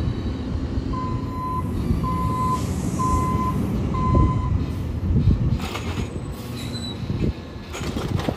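Natural-gas garbage truck engine running low and steady while a backup alarm beeps four times, about once a second. In the second half a few clanks and rattles come from the truck.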